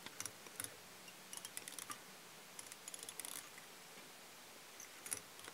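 Faint, scattered light clicks and ticks from hands working a fly at a fly-tying vise, handling thread and rubber legs, in two short clusters about one and a half and three seconds in.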